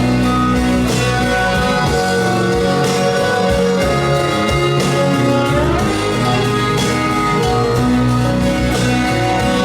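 Music played through KEF Q150 bookshelf speakers: an instrumental passage of a pop-rock song, with guitars over a steady beat and no singing.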